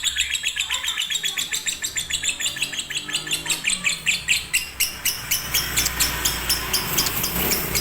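Lovebird chattering: an unbroken run of rapid, shrill chirps, several a second.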